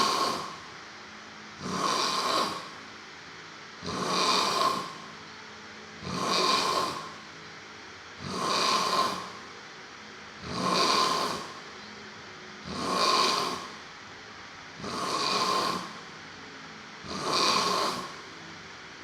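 A person snoring in a steady rhythm, about one snore every two seconds, each lasting just under a second.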